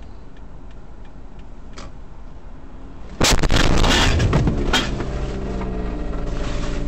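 Car collision heard from inside the car: light regular ticking over a low cabin rumble, then about three seconds in a sudden loud crash with several sharp crunching impacts lasting over a second, followed by a steady droning tone.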